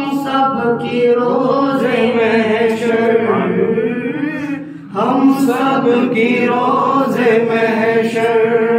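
A boy's voice chanting a salam, the Urdu devotional salutation to the Prophet, into a microphone without instruments, in long held lines with a short break about five seconds in.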